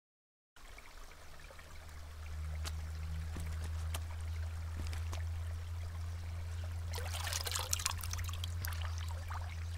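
A low steady hum that swells in over the first two seconds, with a few faint clicks and a spell of crackling hiss about seven to eight seconds in.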